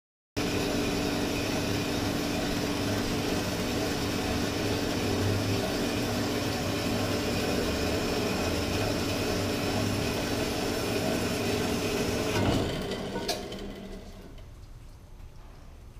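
Horizontal metal-cutting bandsaw running steadily with a constant hum. Near the end there are two clunks and the sound dies away over a second or two.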